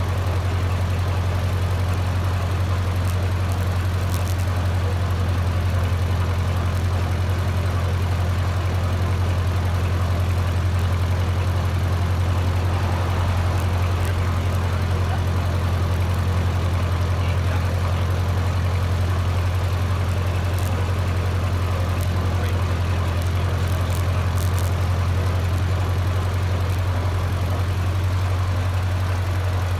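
Small antique tractor's engine running steadily as the tractor drives along, a constant low drone.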